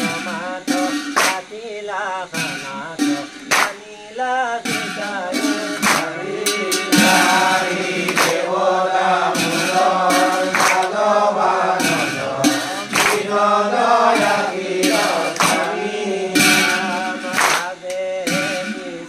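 Assamese nam-prasanga devotional singing by male voices: a chanted, melodic line held and bent from phrase to phrase. Sharp percussive strikes cut in every half second to second.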